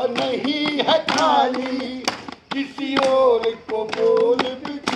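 A voice singing a melody with drawn-out held notes, with sharp claps or taps scattered through it.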